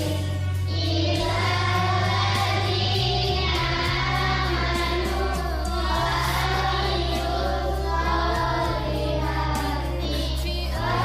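Music: an Arabic-language devotional song (nasheed) with group singing over held bass notes that change every few seconds.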